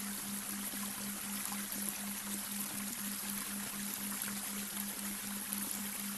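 Babbling brook: water running and trickling over stones in an even, unbroken rush. Under it is a low synthetic delta-wave brainwave tone that pulses evenly about four times a second.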